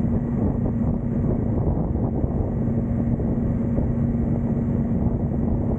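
Motorcycle cruising at a steady speed: an even engine hum under heavy wind buffeting on the microphone.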